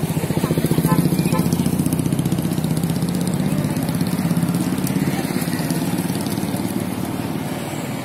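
A motorcycle engine running on the road with a fast, even pulse. It is loudest about a second in, then slowly fades as it moves away.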